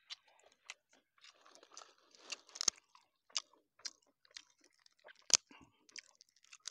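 Banana-leaf wrapping crackling and rustling as a tied food packet is unwrapped by hand, a string of small irregular crackles with one sharper snap about five seconds in.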